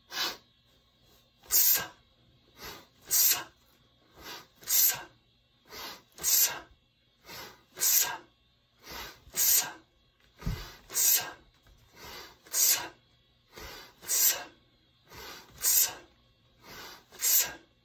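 Sharp, forceful breaths in time with two-handed kettlebell swings. A short sniffing inhale is followed by a louder hissing exhale, about one swing every second and a half, eleven in a row.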